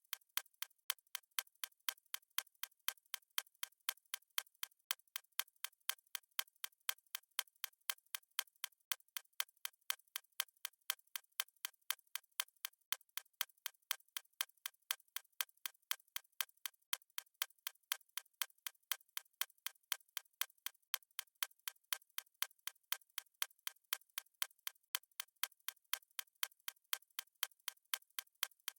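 Countdown timer's clock-tick sound effect: sharp, evenly spaced ticks, several a second, at a steady pace.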